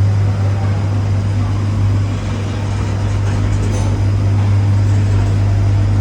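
Heavy-duty ribbon blender mixer machine running, a steady low hum under a constant mechanical rumble.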